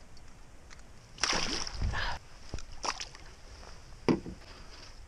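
A few splashes and sloshes of water at the side of a small rowboat, as a fish is handled in the water. The longest runs for about a second starting a little over a second in, with shorter ones near 3 s and 4 s.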